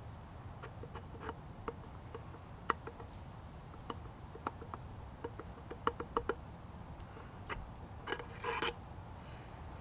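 Scattered light metallic clicks and taps as a GY6 scooter engine's starter clutch and its gear are handled and turned on the crankshaft, with a short rattle about eight seconds in.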